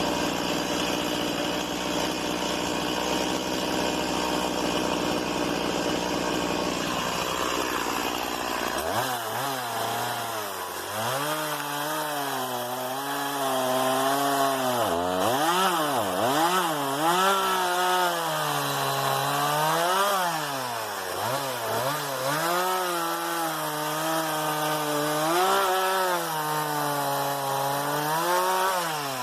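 Stihl MS 170 two-stroke chainsaw running at a steady pitch, then from about nine seconds in cutting wood. Its engine note repeatedly dips and recovers as the chain bites into the wood.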